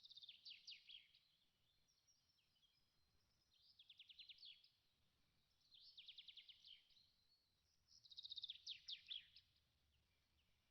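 Faint songbird song: four trilled phrases of rapid, repeated sweeping notes, a couple of seconds apart.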